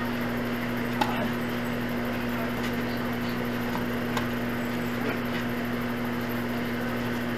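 A few sharp pops of a tennis ball being struck or bouncing, the loudest about a second in and another about four seconds in, over a steady low hum.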